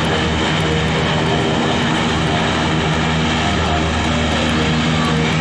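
US Navy LCAC hovercraft running at speed over the water: a loud, steady drone of its gas turbines and ducted propellers, several humming tones over a broad roar.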